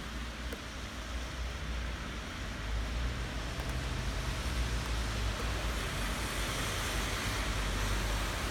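Steady rain falling, an even hiss with a low rumble underneath, growing a little louder about six seconds in.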